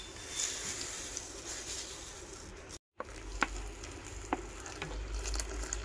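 Breakfast cooking on the stove with a steady sizzling hiss. After a cut a little under three seconds in, a few light clicks and knocks of kitchen work sound over a low hum.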